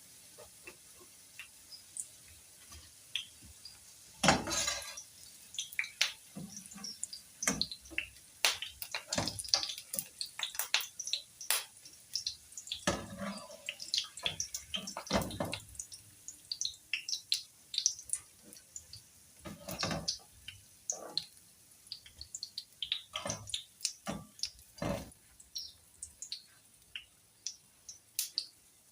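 Hot oil popping and crackling irregularly as potato fritters fry on low heat, with a few louder knocks from a utensil in the pan, the loudest about four seconds in.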